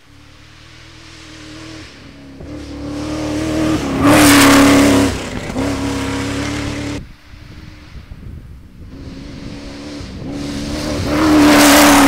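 Two cross-country rally cars driven flat out on a dirt road, one after the other: each engine note swells as the car approaches and is loudest as it passes close, with a spray of hiss from gravel and dust thrown up. The first engine note dips briefly just after it passes, and the second cuts off suddenly at its loudest.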